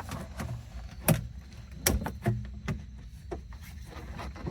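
Irregular sharp clinks and knocks of parts and tools being handled during engine reassembly, about six separate strikes with gaps between them.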